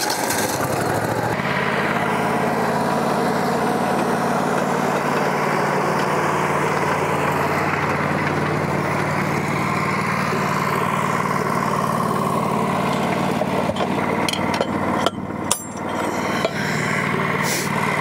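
Wood-Mizer LT40 portable sawmill's engine running steadily while the mill is levelled on its hydraulics, with a brief dip and a few knocks near the end.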